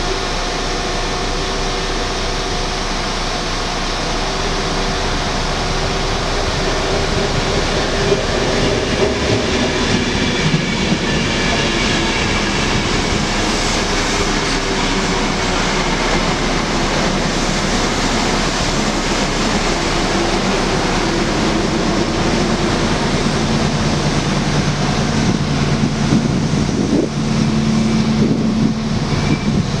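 Chiltern Railways Mk3 coaches running through the station at speed, with a steady rumble of wheels on rail. A low diesel engine hum builds near the end as the Class 68 locomotive propelling the set at the rear comes up.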